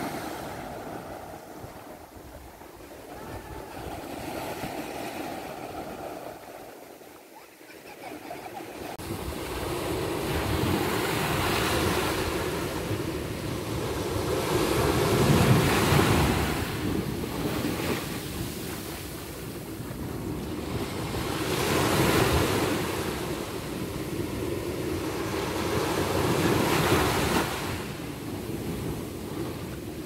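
Small ocean waves breaking on a sandy beach and washing up the shore. The surf is quieter at first, grows louder about nine seconds in, and then swells with each breaking wave about every six seconds.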